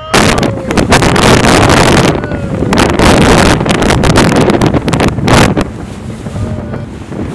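Loud wind buffeting the microphone over water rushing and splashing past a fast-moving kite-powered inflatable boat, easing to a steadier rush after about five and a half seconds.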